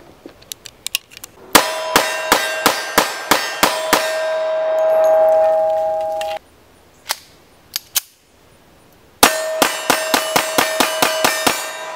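Two rapid strings of semi-automatic pistol fire, about eight shots and then about ten, three to four a second. After each string a steel target rings on with a steady tone for a couple of seconds. A few faint clicks come before the first string, and two single metallic clicks fall between the strings.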